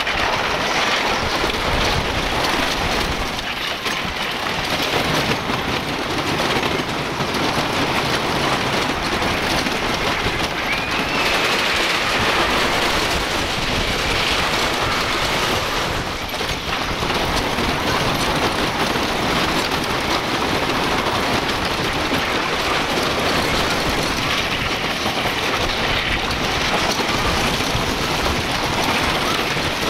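Wooden roller coaster train rumbling along its track at speed: a steady, loud rushing noise throughout.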